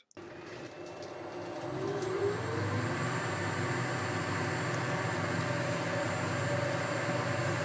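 Lathe spindle and belt drive, driven by an inverter-fed variable-speed motor, speeding up. The motor's hum rises in pitch and grows louder over the first few seconds, then runs steadily, with a thin high whine above it.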